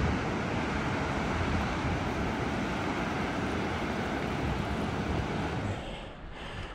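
Wind rushing over the microphone of a camera on a moving bicycle: a steady rushing noise with an uneven low rumble, dropping off about six seconds in.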